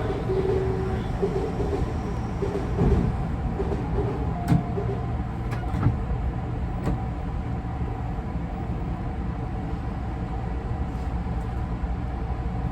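Interior sound of a Tobu 50090-series electric train car: a steady low rumble with faint steady tones, broken by a few sharp clunks in the middle.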